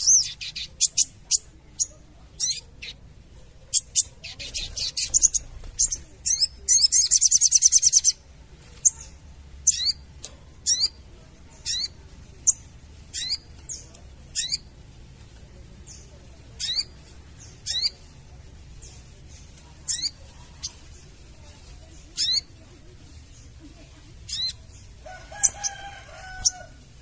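Sogon (crested jay) calling: a string of short, sharp, high notes, each sliding downward, repeated about once a second, with a dense rapid rattling chatter about six to eight seconds in.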